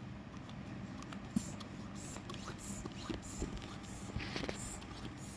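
Plastic hand pump inflating a long twisting balloon, pushed in quick strokes with a short hiss of air on each stroke, about every half second, starting about a second and a half in.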